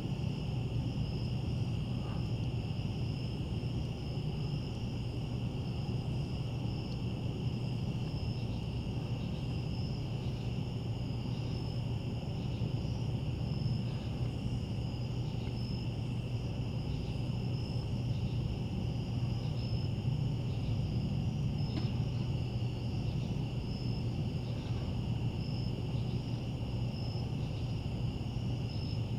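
Night insects, crickets, trilling steadily in a high chorus, one strand pulsing about once a second. A low steady hum runs underneath.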